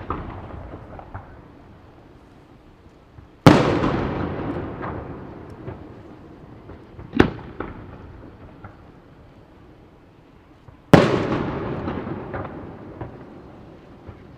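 Aerial fireworks shells bursting: two big booms about 3.5 and 11 seconds in, each followed by a long rumble that fades over several seconds, with a sharper, smaller bang around 7 seconds and scattered faint pops between.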